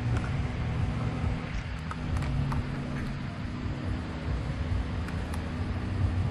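Steady low mechanical hum with background hiss, and a few faint light clicks scattered through the middle.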